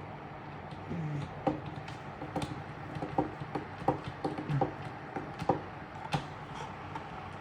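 Irregular clicks and knocks of plastic fan parts being handled and screwed back together, about eight in a few seconds, over a steady faint hum.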